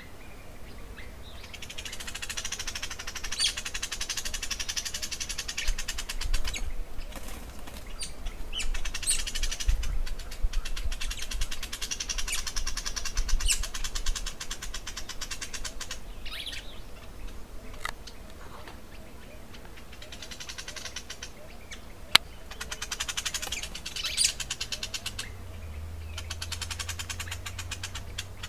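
Dubbed-in nature soundtrack of birds chirping, with rapid buzzing trills that come and go in stretches of a few seconds. A single sharp click comes a little after the middle, and a low hum starts near the end. The hawk bathing on screen is not what is heard.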